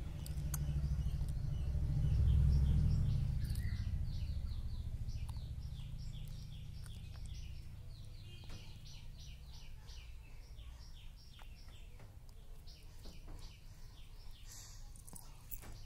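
A rapid, regular series of short high chirps, about three a second, over a low rumble that is loudest two to three seconds in and then fades.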